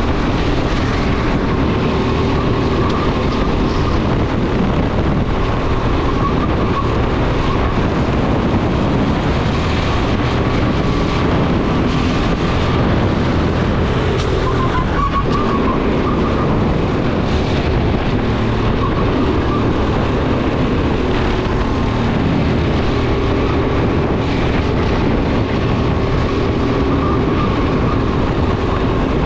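Racing go-kart under way at speed, its motor note holding steady and shifting up and down in pitch as it is driven round the corners of the lap.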